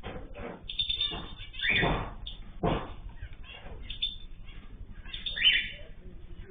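Small cage birds chirping in short high calls, with a few louder thumps or wing flaps about two seconds in and again near the end.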